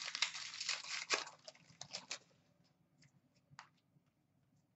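Foil wrapper of an Upper Deck Series 2 hockey card pack crinkling and tearing open for about two seconds, followed by a few soft clicks of the cards being handled.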